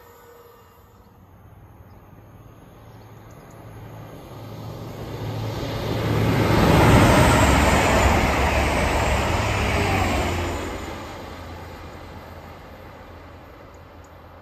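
TransPennine Express passenger train passing close by at speed: the rumble of its wheels on the rails swells over a few seconds, stays loud for about four seconds, then fades away. A low steady hum runs underneath.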